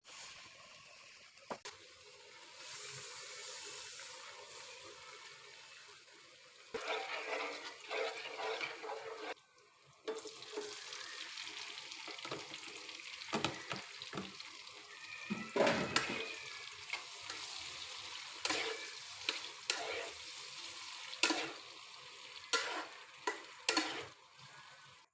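Food sizzling in a frying pan as it is stirred, with a utensil scraping and knocking against the pan many times.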